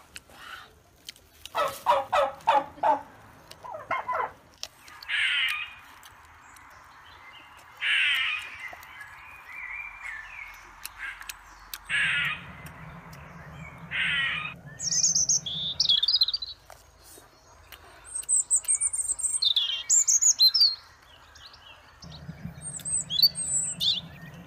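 Birds calling: a short run of rapid repeated notes about two seconds in, then high chirping birdsong through the second half.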